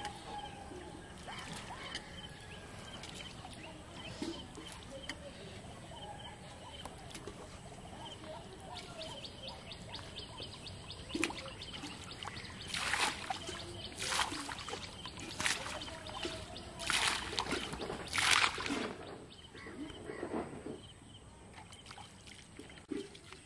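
Water scooped up in a metal pot and poured back into a pond, a run of five or six short splashing pours in the second half.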